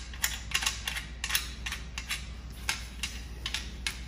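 Irregular sharp metallic clicks and taps, about a dozen, as a screw and the joined sections of a metal flagpole are handled.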